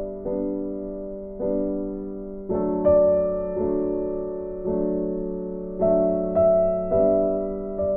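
Background piano music: soft sustained chords struck about once a second, each fading before the next.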